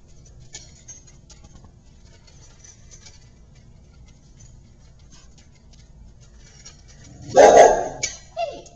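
A puppy eating dry kibble from a stainless steel bowl: faint crunching and scattered clicks of food against the metal, then a much louder burst of noise about seven seconds in, with a shorter sound with a falling pitch just after it.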